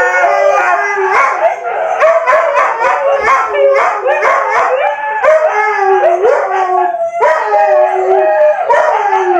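Siberian husky howling and 'talking' in a long run of wavering, gliding yowls, with short yips mixed in and almost no pause.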